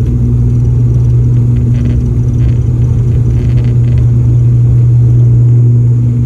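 Steady, loud, low drone of a vehicle in motion, with a constant low hum and no change in pitch.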